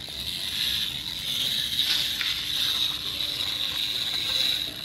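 Plastic toy police car's wheel gearing whirring and ratcheting as it is rolled back and forth by hand on concrete.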